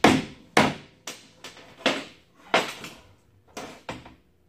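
Hand hammer striking the rusted rear suspension hardware under a Jeep Cherokee XJ, knocking at seized parts: about nine sharp blows at an uneven pace, each with a short ring, the last few lighter.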